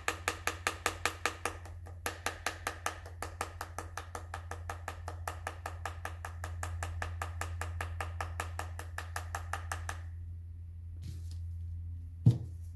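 Rapid, even scraping ticks, about six a second, of a small tool working the burst charge out of a metal firework shell hemisphere into a glass bowl. The ticks stop about ten seconds in, and a single sharp knock follows near the end, over a low steady hum.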